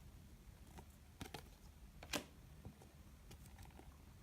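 Faint clicks and taps of glossy 2016 Donruss Optic baseball cards being flipped through one at a time, with a slightly sharper click about two seconds in.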